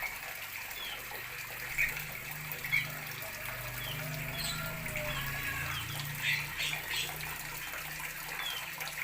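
Steady rushing hiss, like running water, with small birds giving short high chirps every second or so.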